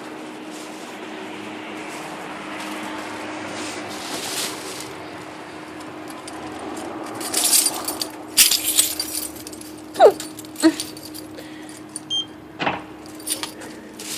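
Keys jangling in a few short bursts from about halfway through, followed by scattered clicks and knocks, over a steady hum.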